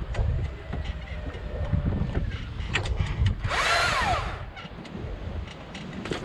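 Husqvarna electric chainsaw revving up briefly about three and a half seconds in, its motor whine rising and then falling, as limbs are cut from the tree, over steady wind rumble on the microphone.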